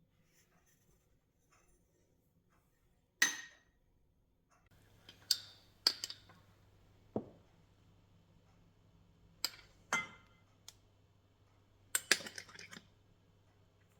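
Dishes and kitchen utensils clinking and knocking against each other: a series of separate sharp clinks with short ringing, the loudest about three seconds in and a quick cluster near the end.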